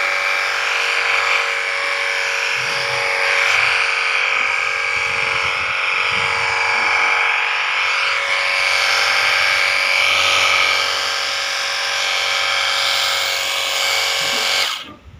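Cordless battery-powered high-pressure washer running, its small electric motor and pump giving a loud, steady whine. It cuts off near the end.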